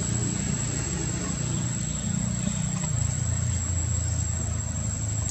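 Low, steady hum of an idling engine, its pitch dropping slightly about three seconds in, with a thin steady high whine above it.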